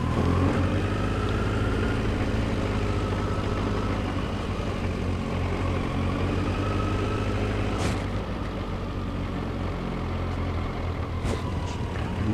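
An engine idling steadily, with a brief click about eight seconds in and another near the end.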